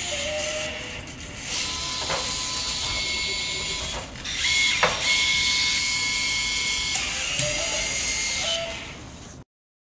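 Robotic manipulator arm's joint drives running with a steady whine and hiss as the arm lowers a connector, releases it and lifts away. Sharp clicks come about two seconds in and again near five seconds in. The sound cuts off abruptly near the end.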